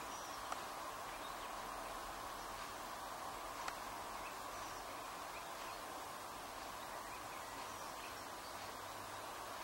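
Faint, scattered chirps of small garden birds over a steady background hiss, with two small clicks, one about half a second in and one a little under four seconds in.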